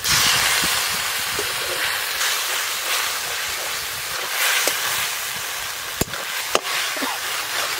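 Water from rinsing the spice grinding stone poured into hot oil and spices in a metal wok, setting off loud sizzling that is strongest at the pour. The sizzling carries on as a metal spatula stirs the masala, with a couple of sharp spatula clicks against the pan about six seconds in.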